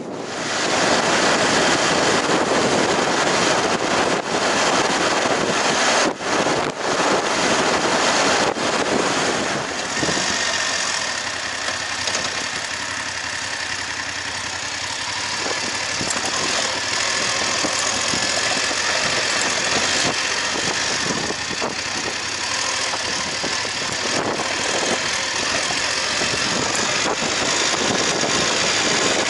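BMW F-series GS adventure motorcycle with a parallel-twin engine, setting off and then riding steadily, heard from the bike under heavy wind rush on the microphone.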